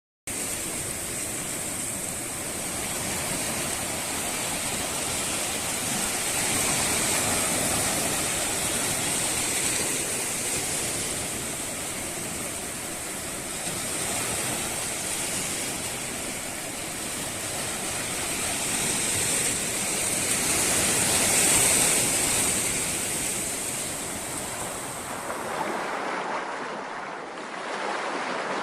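Steady rushing water, an even hiss and rumble that swells and eases slowly. Near the end the sound changes, the deep rumble dropping away and leaving a thinner wash.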